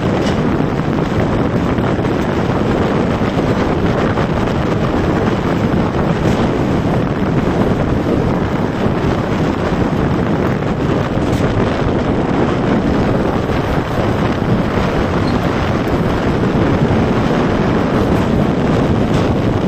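Wind rushing over a phone's microphone while moving, a steady loud rumbling rush without let-up.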